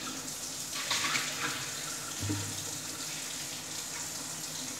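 Kitchen tap running into a stainless-steel sink, the stream splashing over hands and a thin sheet being rinsed under it, a steady hiss of water. A brief low hum sounds about two seconds in.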